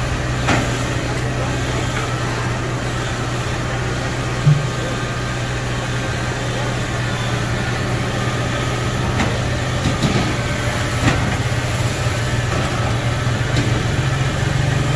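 Kubota DC70 combine harvester's diesel engine running steadily as the machine crawls up onto a truck bed. A few short knocks sound over it, the loudest about four and a half seconds in.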